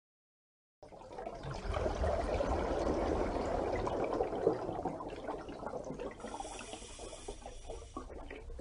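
Water rushing and pouring steadily, starting abruptly about a second in.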